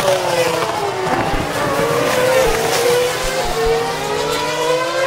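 Formula 1 cars' 2.4-litre V8 engines running on a wet track: several engine notes slide down in pitch and back up over a steady hiss.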